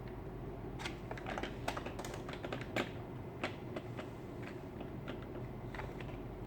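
Robot vacuum cleaner running with a steady low hum, with light, irregular clicks and taps over it, most of them in the first half.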